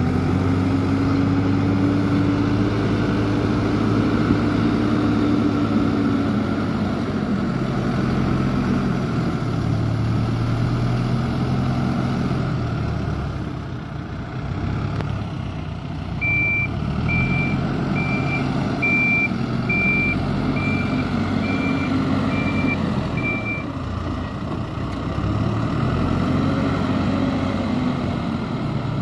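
An engine running, its pitch rising and falling several times. Past the middle, about nine evenly spaced high beeps sound over it, a little under one a second.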